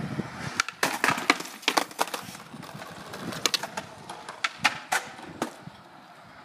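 Skateboards clacking and knocking on concrete: a run of sharp, separate clacks at irregular intervals, bunched in the first two seconds and again around the middle, growing fainter toward the end.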